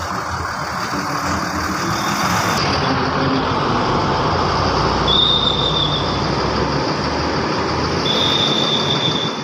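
A bus's engine running as it moves off, growing louder, with two short shrill high tones, one about five seconds in and one about eight seconds in.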